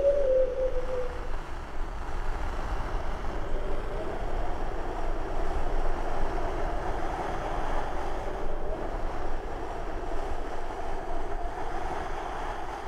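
A steady tone slides down in pitch and fades out in the first second, giving way to a steady rushing noise that swells in the middle and eases near the end.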